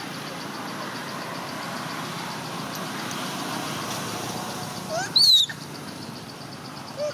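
A baby monkey gives a short, loud squeal about five seconds in, with a smaller squeak near the end, over a steady background hum of noise.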